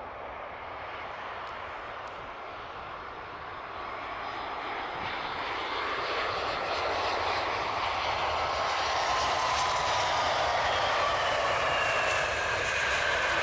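Boeing 777 jet engines running: a rushing noise that grows steadily louder, with thin whining tones coming in over the second half.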